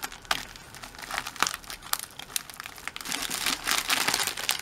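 Plastic bubble mailer crinkling and rustling in the hands as it is opened, in irregular crackles that grow busier and louder in the last second or so.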